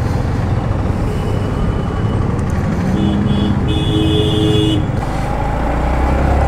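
Yamaha MT-15's single-cylinder engine running steadily under way, with wind and road rumble. A vehicle horn sounds twice, a short toot about three seconds in and a longer one just after.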